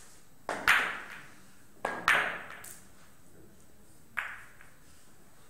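Billiard balls clacking together on a carom table: sharp clicks with a short ringing tail. The first two come as pairs of clicks about a fifth of a second apart, and a single click follows about four seconds in.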